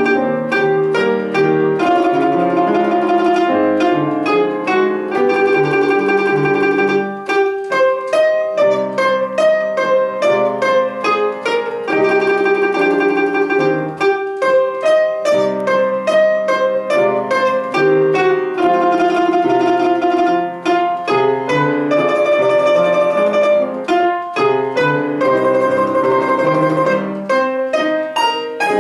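A domra plays a slow lyrical melody, its held notes picked in rapid tremolo, over a grand piano accompaniment.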